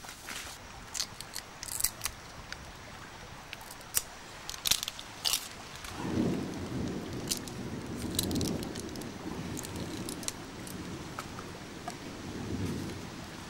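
Scattered sharp snaps and cracks of bamboo and twigs, then knife cuts into fresh bamboo shoots as they are peeled. About six seconds in, a low rumbling noise starts beneath the cuts and runs on.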